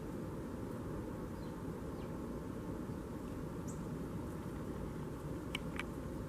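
Steady low background rumble of outdoor ambience with a few faint, high, short bird chirps, and two short sharp clicks close together near the end.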